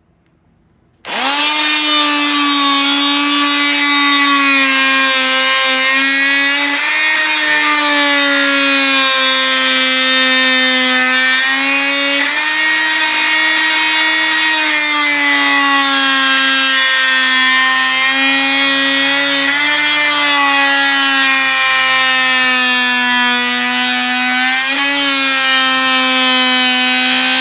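Porter-Cable oscillating multi-tool running with a loud, steady high-pitched whine, its blade cutting into a 2x4. It starts abruptly about a second in, and its pitch dips and recovers several times as the blade bears into the wood.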